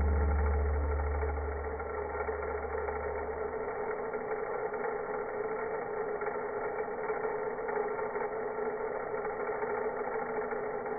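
Vacuum cleaner motor running with a steady hum. A deep low drone underneath it dies away about three and a half seconds in.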